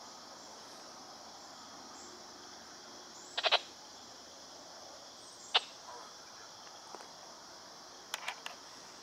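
Steady chorus of insects buzzing, high-pitched and even, with a few short sharp sounds about three and a half, five and a half and eight seconds in. The distant train is barely heard.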